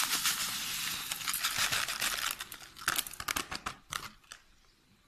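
Dry tlitli pasta pouring from a plastic bag into an aluminium couscoussier steamer basket: a steady rush of small grains hitting the perforated metal and each other, with the bag crinkling. A little past halfway it gives way to a few scattered clicks and rustles as the last grains fall and the bag is pulled away, then it goes quiet near the end.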